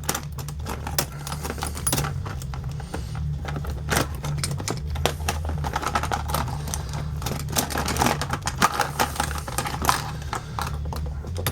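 Small metal hand tools, precision flathead screwdrivers, being rummaged and handled, giving irregular clicks and rattles over a steady low hum.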